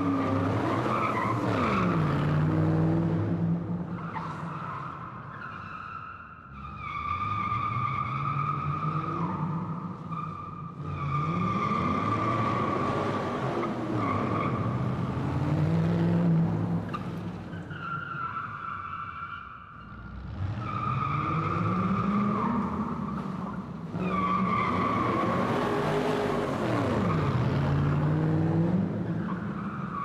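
Car tires squealing in long continuous screeches, a high steady squeal with the engine revving up and down beneath it. It swells and fades in repeated passes, dipping briefly several times between them.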